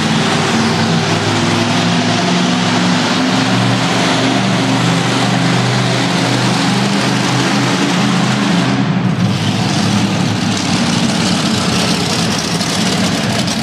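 Several monster truck engines running loudly together, their pitch shifting as they rev, echoing through an indoor arena.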